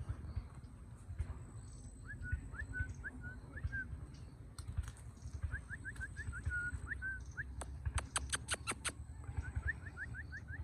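A parrot making runs of quick, high chirps, three runs of several notes each: about two, five and a half and nine seconds in. A fast series of sharp clicks comes just before the last run, over a low rumble.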